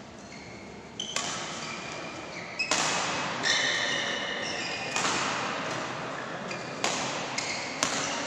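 Badminton rally: sharp racket strikes on the shuttlecock about every one to two seconds, echoing in a large hall, with short high squeaks of players' shoes on the court mat between the strikes.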